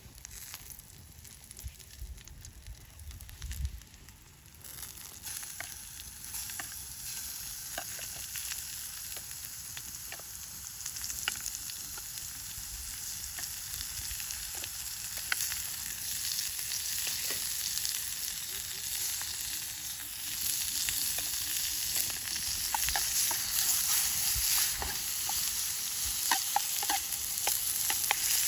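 Food sizzling as it fries in a pan, with scattered sharp pops of spitting fat. The sizzle starts about four or five seconds in and grows steadily louder.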